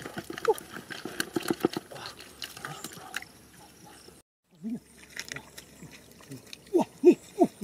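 Scattered wet clicks and slaps, with short pitched chirps, in the first half. The sound then cuts out briefly. Near the end come a few short, loud, rising-and-falling calls.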